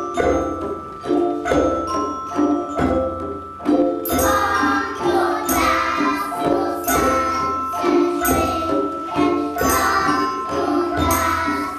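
Children's school music group playing xylophones and other mallet percussion over a steady drum beat. From about four seconds in, the music becomes fuller, with children's voices singing along.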